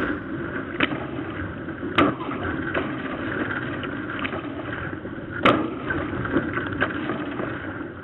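Water and wind rushing steadily past a Tornado sailing catamaran underway, with a few sharp knocks about one, two and five and a half seconds in.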